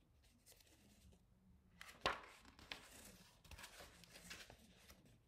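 Faint paper rustling as a picture book's page is turned, with a soft tap about two seconds in.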